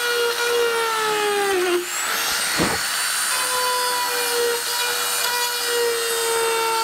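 Dremel rotary tool running at high speed, its bit grinding out a crack in a fibreglass panel. The whine drops in pitch under load about a second and a half in, then comes a short grinding rasp before it runs steady again.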